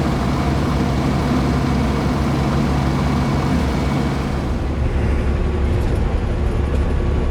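Diesel engine of a grain-hauling semi truck running under way, with road noise heard from inside the cab; the engine note shifts about halfway through.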